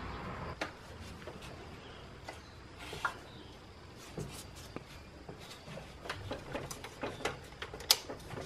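Scattered light clicks and knocks of hands and a wrench working on a BMW M54 engine's serpentine belt and pulleys while the belt is refitted. The clicks come more often in the second half, with the sharpest one near the end.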